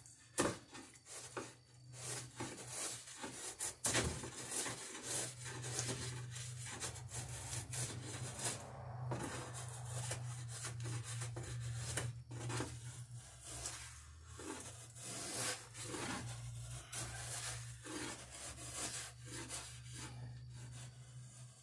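Drawknife shaving the edge of a wooden dory plank in repeated scraping strokes, about one a second, as the gain is cut at the plank's end. A steady low hum runs underneath from about five seconds in.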